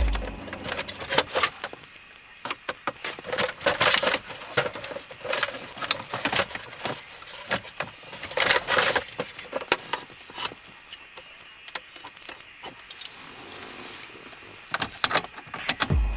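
Irregular clicks, clatters and rattles of small hard parts being handled, with a few sharper knocks and some rustling between them.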